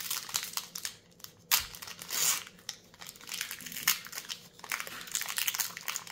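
Foil wrapper of a Magic: The Gathering collector booster pack crinkling and tearing as it is opened by hand, in irregular crackles.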